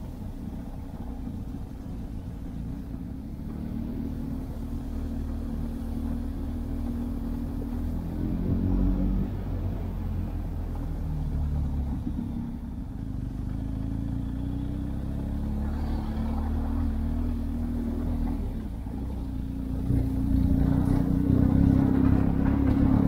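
Motorcycle engine running under way, its revs rising and falling. It grows louder about 20 seconds in.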